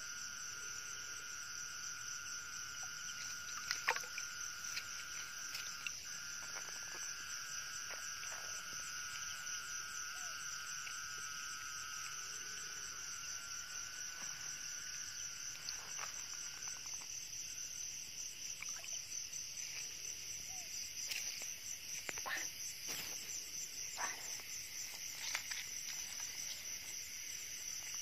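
Night chorus of insects and frogs: a steady, pulsing high trill with a lower continuous tone that stops about seventeen seconds in. A few short sharp noises break in, the loudest about four seconds in.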